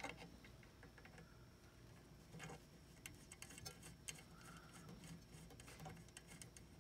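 Faint scattered metal clicks and ticks of an adjustable wrench on a small brass fitting of a live steam locomotive as the fitting is unscrewed, over near silence.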